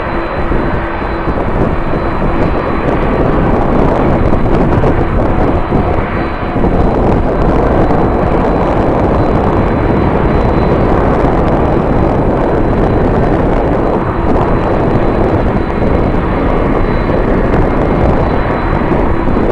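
Jet airliner engines running loud and steady, with a thin high whine over a dense rushing noise.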